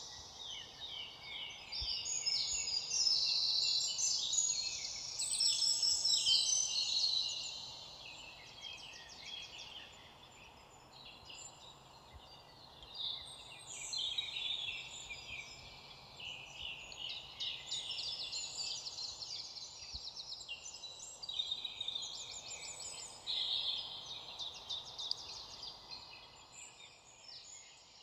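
Several songbirds singing over one another, a dense run of rapid trills and chirps, louder for the first several seconds and then a little softer, over a faint steady background hiss.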